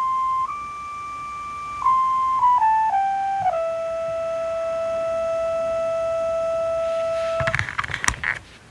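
Synthesizer playing a slow, flute-like single-line melody that steps down and settles on one long held note. The note cuts off about seven and a half seconds in, followed by a flurry of clicks and knocks from handling the gear.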